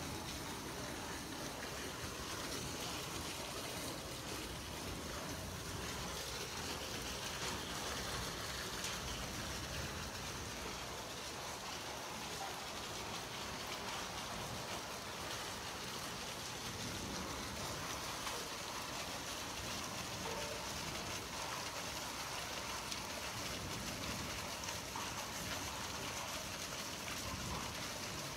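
Heavy rain falling as a steady, even hiss.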